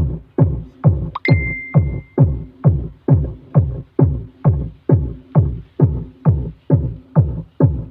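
Electronic dance music played through a homemade 18-inch speaker cabinet with a TNT 1000 W driver, as a sound test. Deep kick drums that drop in pitch hit a little over twice a second, and a short high synth tone comes in about a second in.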